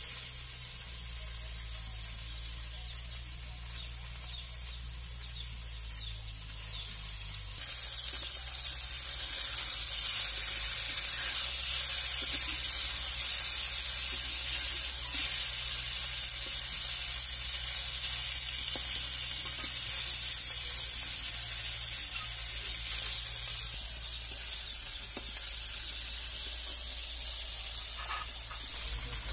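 Pieces of marinated fish frying in hot oil in a wok, a steady sizzle. The sizzle gets clearly louder about eight seconds in.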